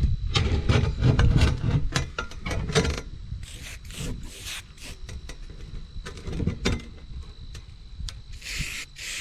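Wind buffeting the microphone as a heavy low rumble for the first few seconds, with scattered clicks and rubbing from handling. Short hissing bursts come near the end.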